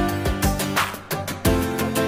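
Background music with a steady beat and sustained melodic notes.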